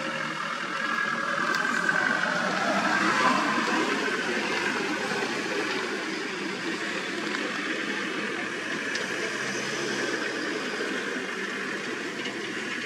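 Safari vehicle engine idling, a steady even noise throughout.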